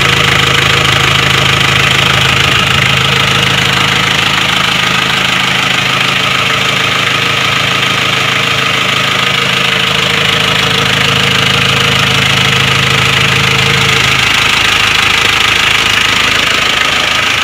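Isuzu Panther's 2.3-litre four-cylinder diesel engine idling with a steady, even diesel clatter, its tone shifting slightly near the end. The idle is crisp and regular, not rough, which the seller takes as the sign of a healthy, tight engine that needs no overhaul.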